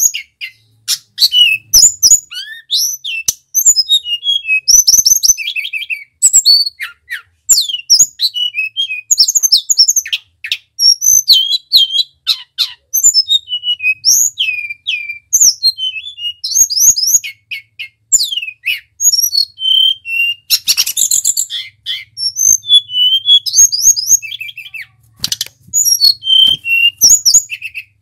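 Male hill blue flycatcher (tledekan) singing in full voice: a fast, near-continuous stream of varied high whistled phrases, with quick up- and down-sweeping notes and trills broken by short pauses, mixed with sharp clicks.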